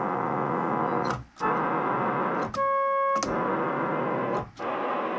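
ARP Solina String Ensemble string-synth notes played one after another with short breaks, mostly coming out as a rough, noisy tone instead of a clean pitch, with one brief clean note about halfway through. The degraded notes are the B keys in one octave breaking up, a fault the repairer traced to the M087B1 master oscillator chip.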